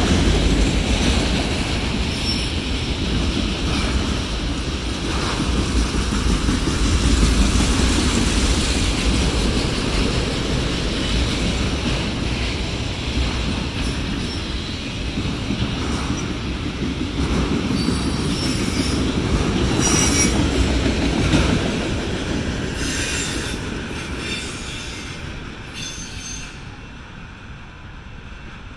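Freight train of autorack cars rolling past, its steel wheels making steady rumbling rail noise with brief high-pitched wheel squeals in the second half. The sound fades away over the last several seconds as the end of the train passes.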